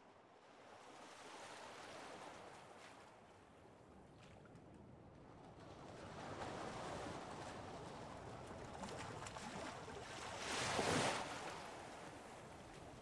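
Lakeside wind and lapping water, an even rushing that swells and fades, with a louder gust of wind on the microphone about eleven seconds in.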